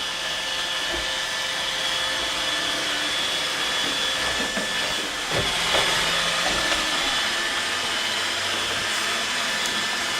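iRobot Roomba 880 robot vacuum running as it cleans the floor: a steady whirring hiss with a thin, even whine over it, and a light knock about five seconds in.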